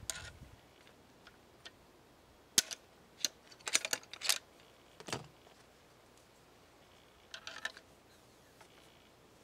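Sharp clicks and taps of a 12-gauge CVA Hawken black-powder shotgun being loaded at the muzzle. A wad is handled and started into the bore, and a ramrod is slid down the barrel. There is a quick run of clicks in the middle, a duller knock just after, and a short cluster of clicks near the end.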